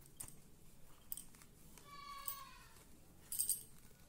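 Quiet handling of a pomelo as its thick peel is prised loose by hand, with faint clicks. A short high-pitched call comes about halfway through, and a brief ringing clink comes near the end.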